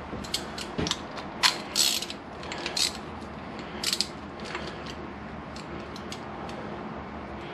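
Ratchet wrench clicking in short irregular runs as it spins a brake pad retaining pin down into a motorcycle rear brake caliper. The clicks are loudest and closest together in the first half, then thin out to a few single clicks.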